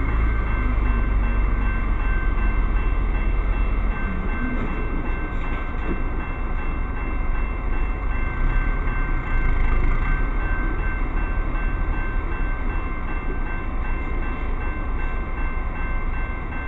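Railroad grade-crossing bell ringing steadily while the crossing signals are active, over the low rumble of a heavy diesel truck's engine running. The rumble is heavier for the first few seconds, then eases.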